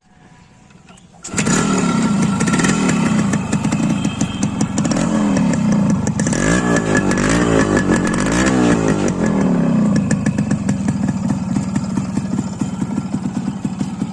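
Yamaha RX100's two-stroke single-cylinder engine starting about a second in, then revved up and down several times and settling back to a steady run.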